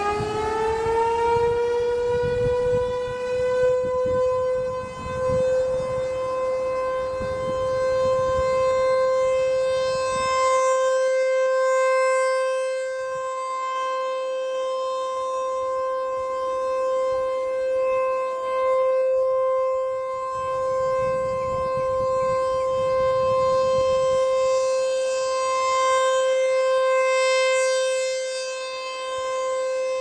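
ASC T-128 outdoor warning siren sounding the steady Alert signal. It finishes winding up to full pitch in the first couple of seconds, then holds one steady tone that swells and fades every few seconds as its rotating head sweeps round.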